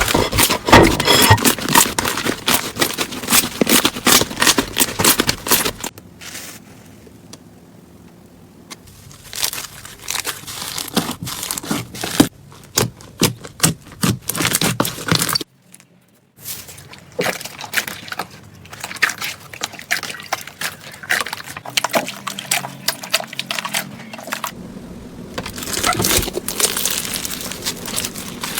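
Hands squeezing, poking and stretching slime, making dense crackling and popping, in several short clips. The sound drops quieter for a few seconds about six seconds in, cuts out briefly a little past halfway, and picks up again.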